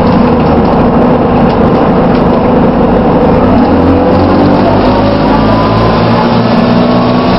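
Plaxton Pointer-bodied Dennis Dart single-deck bus running, a loud steady engine drone with a whirring whine that slowly rises and falls in pitch as the bus changes speed.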